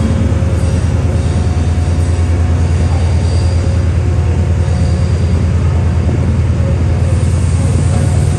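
Class 68 diesel-electric locomotive with a Caterpillar V16 engine, running with a steady low drone as it moves slowly along the platform and away.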